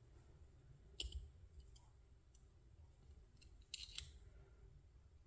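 A few faint, sharp clicks of small metal and plastic model-crane parts being handled in the fingers: one about a second in and a short cluster near four seconds.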